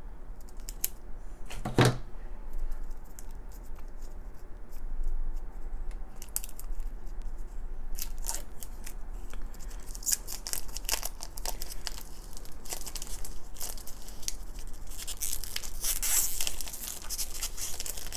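Scissors cutting into the clear plastic shrink-wrap on a heart-shaped toy container, with a sharp snip about two seconds in. Then the thin film crinkles and tears as it is peeled away by hand, busiest and loudest in the second half.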